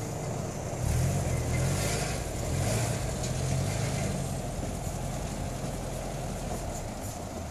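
2001 Subaru Legacy GT's flat-four engine pulling away along a dirt trail. It picks up about a second in, then eases off gradually.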